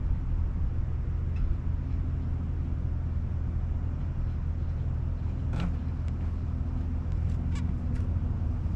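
An engine idling steadily, a constant low hum with no change in speed. A few faint short ticks come through over it in the second half.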